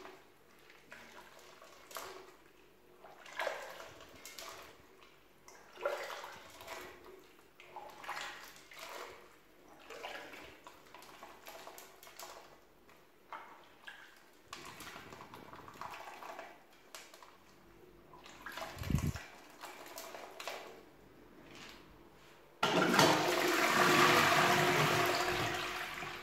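Dry popcorn rustling and crunching faintly as a hand stirs and presses it in an empty toilet bowl, in short irregular bursts. About 23 seconds in, the toilet is flushed: a sudden loud rush of water that starts to die down near the end.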